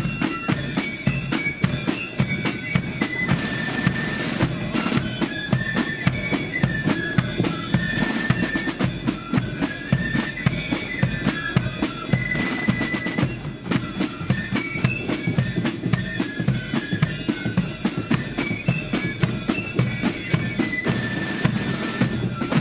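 Marching flute band playing a tune on high flutes over a steady beat from a bass drum and snare drums.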